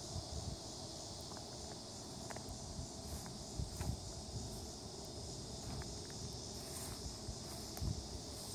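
Steady high-pitched drone of insects, with a few soft low thumps from the footsteps of the person filming.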